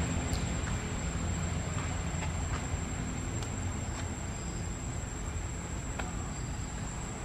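Steady high-pitched insect drone over a low rumble, with a few faint clicks.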